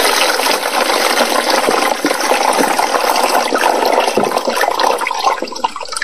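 Sulfuric acid electrolyte pouring and splashing out of an upturned 12-volt lead-acid car battery into a plastic tub as the old acid is drained. The steady rush thins out near the end.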